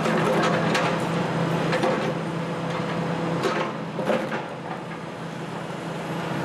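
Heavy hydraulic excavators running, their diesel engines making a steady low hum. Over the hum come irregular sharp cracks and crunches of wood and debris as the grapples tear apart a building.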